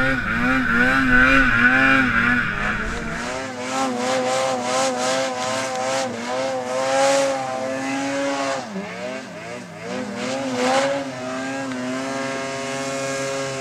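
Snowmobile engine revving up and down as the sled carves through deep powder. It is heard close up at first and from a distance after about three seconds. The engine pitch sags briefly about two-thirds of the way through, then picks up again.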